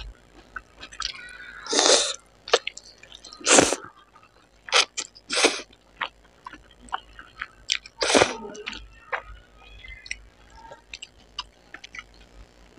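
A person slurping spicy noodles close to the microphone: about five loud, short slurps, with small wet clicks of chewing between them.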